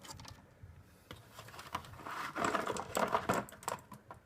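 Small plastic clicks and rustling of wiring and connectors being handled as the HID bulb's lead is plugged into its ballast, with a denser stretch of crackly rustling about halfway through.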